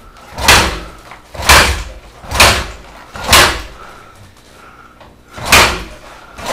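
Dirt bike being kick-started over and over: five kicks about a second apart, with a longer pause before the last, each a short whoosh of the engine turning over that never catches. The riders later put the failure to start down to fuel not getting through.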